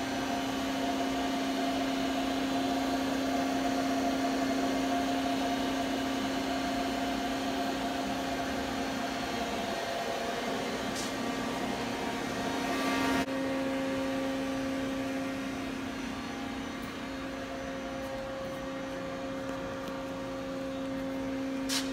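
Steady hum of a powered-up Doosan Lynx 220LM CNC turn-mill center idling: a constant low tone over an even hiss. The higher tones shift about 13 seconds in.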